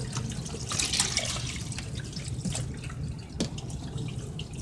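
Water dripping and splashing as wet laundry is lifted out of a twin-tub washing machine's wash tub and moved to the spin tub, with scattered small knocks from the handling.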